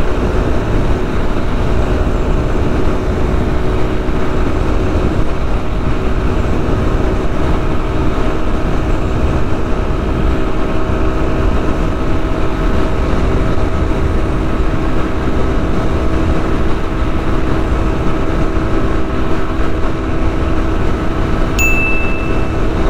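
Hero Pleasure's 102 cc single-cylinder four-stroke scooter engine running flat out at wide-open throttle near its top speed of about 80 km/h, its pitch holding steady, with wind rushing over the microphone. A short high beep sounds near the end.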